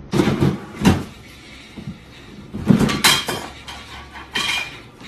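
A plastic swing-top lid on a kitchen trash can knocking and clattering a few times as a cat climbs inside and pushes at it from within.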